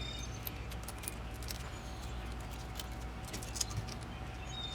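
Scattered light clicks and clinks of metal parts and tools being handled while fitting a truck's ABS wheel-speed sensor, over a steady low hum.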